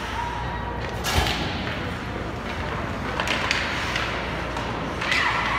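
Ice hockey play echoing in an arena: a sharp crack of stick and puck about a second in, then a few softer knocks, over steady rink noise and distant shouts.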